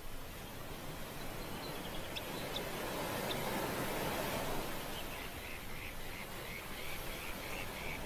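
Ocean surf washing below the pier, swelling for a second or two around the middle. A faint run of short, high ticks, about three a second, comes in over it during the second half.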